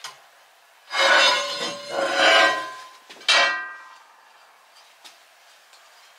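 Cast iron cookware clanking and scraping on a cast iron cookstove top with a metallic ring. A ringing scrape-and-clatter lasts about two seconds, starting a second in, followed just after three seconds by a single sharper clank that rings away.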